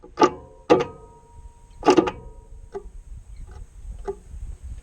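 Sharp metal-on-metal clanks that ring on briefly like a bell: three loud strikes in the first two seconds, then a few lighter taps spaced irregularly.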